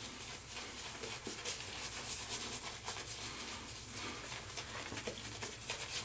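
Shaving brush scrubbing cream lather into a week-old beard: quick repeated bristly strokes with a wet, hissing scratch.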